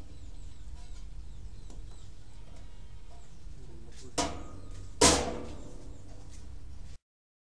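Two knocks on a stainless-steel chip-slicing machine, about four and five seconds in, the second louder and ringing briefly, over a low steady hum.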